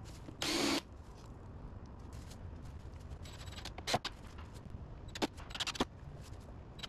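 Cordless drill driving a screw through PVC pipe into wood in one short burst about half a second in. After it come a few sharp clicks and taps.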